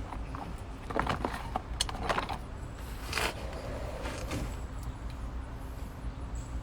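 Irregular metallic clinks and scrapes of brake pads and their metal shims being handled and test-fitted in a rear brake caliper bracket, a few separate knocks over a steady low hum.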